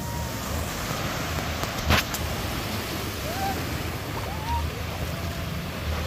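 Surf washing up on a sandy beach, with wind buffeting the microphone. A single sharp click about two seconds in, and a few faint, short rising shouts, like far-off children, in the second half.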